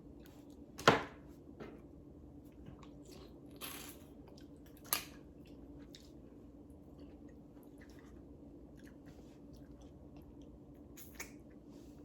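A person eating seafood boil with mussels: wet chewing and mouth sounds with scattered small clicks, and a sharp click about a second in and another about five seconds in.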